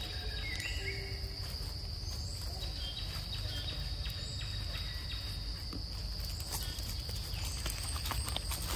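Steady high insect chorus, one unbroken tone, over a low rumble, with a few faint chirps. From about two-thirds of the way in, dry leaves rustle and crackle underfoot.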